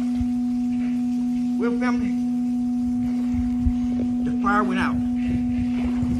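A loud, steady low-pitched hum on one unchanging tone, with a man's voice giving two short vocal sounds, about one and a half and about four and a half seconds in.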